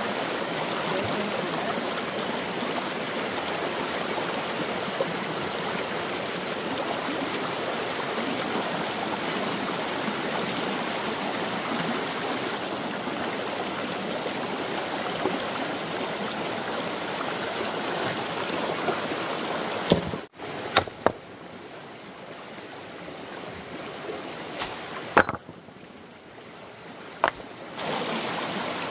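Steady rushing of flowing water, like a stream. About two-thirds of the way in, the rushing drops away abruptly to a quieter water sound with a few sharp knocks, and the loud rushing returns near the end.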